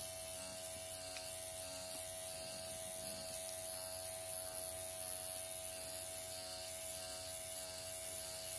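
Dr. Pen M8 electric microneedling pen running with a steady, even buzz while its needle cartridge is worked against the skin of the face.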